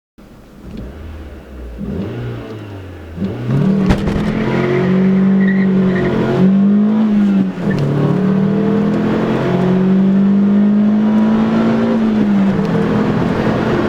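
Renault Twingo RS 1.6 naturally aspirated four-cylinder engine revving: the pitch climbs over the first three seconds, then the engine is held at high, fairly steady revs, with a few brief dips and recoveries.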